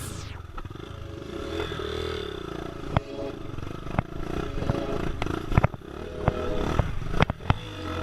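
Trail motorbike engine revving up and down, with several sharp knocks and clatter along the way.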